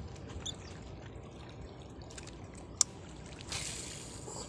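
Small waves lapping and trickling against the shoreline rocks, with one sharp click a little under three seconds in and a brief louder wash of water shortly after.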